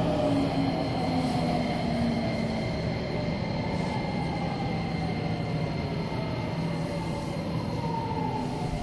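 Nagoya Municipal Subway 6050 series train standing at a platform, its onboard electrical equipment giving a steady hum and high whine. A lower tone slides down and fades in the first couple of seconds.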